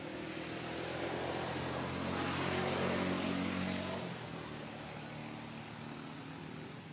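A motor engine passing by: a steady engine hum that grows louder to a peak about three seconds in, then fades away.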